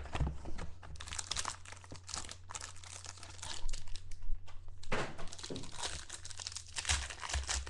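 Foil wrapper of a football trading-card pack crinkling and tearing as it is pulled open by hand, with a sharp tap near the start.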